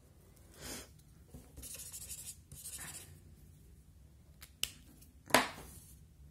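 Blending-pen tip rubbing over watercolour paper in a few short scratchy strokes, then two small clicks and one sharp click about five seconds in.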